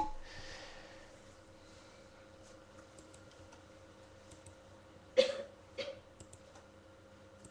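A pause with a faint steady hum. About five seconds in, a man clears his throat twice in quick succession, close to the microphone.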